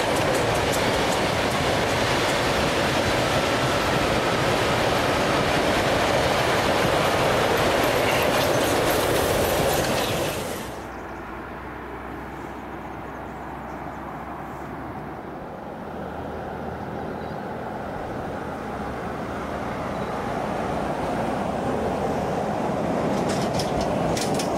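Steam-hauled heritage passenger train running on the rails, with a steady rushing noise and rail-joint clickety-clack. The sound drops off suddenly about ten seconds in, then builds up again over the last few seconds.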